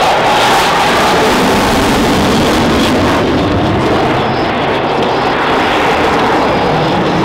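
Eurofighter EF-2000 Typhoon fighter jet in flight: the loud, steady noise of its twin Eurojet EJ200 turbofan engines.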